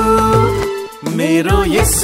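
Nepali Christian worship song: a man singing over instrumental backing. A held note breaks off briefly about a second in, then the singing picks up again.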